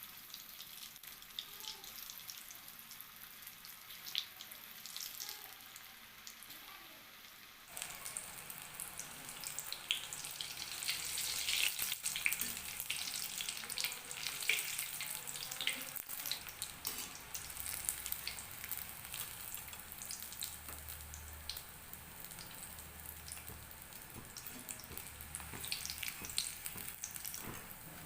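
Vegetable chops deep-frying in hot oil: a steady sizzle full of small crackles, which grows louder and busier about eight seconds in.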